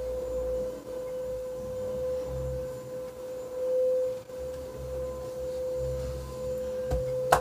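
A steady single-pitch whine holds on without a break. A low rumble comes and goes underneath it, and one sharp click sounds near the end.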